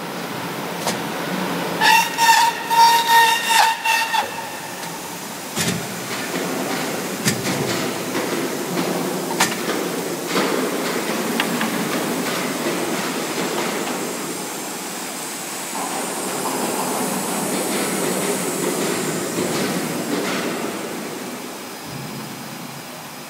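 Double slat roll forming machine running: a steady mechanical rumble and rattle with scattered clicks and knocks. About two seconds in, a pulsing high-pitched tone sounds for around two seconds.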